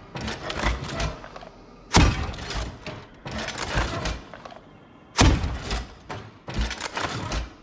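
Sound effect of a Lorenz MK V Kickback grenade launcher, an M79-style weapon: mechanical clicks and clunks at the start, then two sharp shots about three seconds apart, the second one loudest. Each shot is followed by a quick series of clicks and clunks from the weapon's action.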